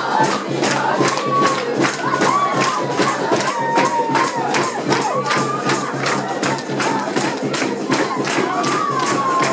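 A group of people singing a Christmas carol together, clapping their hands to a steady, fast beat.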